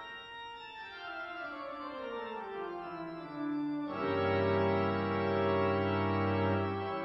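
Church organ playing: a line of notes descends over the first few seconds, then about four seconds in a louder full chord enters with deep pedal bass and is held, the bass releasing near the end.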